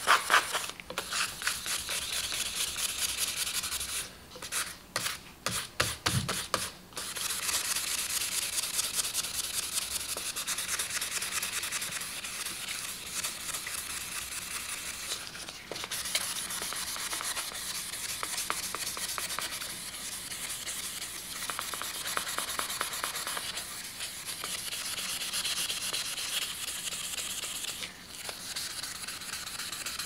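Sandpaper rubbed in quick back-and-forth strokes across the flat of a Victorinox chef's knife blade, polishing out scratches left by improper whetstone sharpening. The rubbing breaks off about four seconds in, with a few separate strokes, then picks up again and runs on steadily.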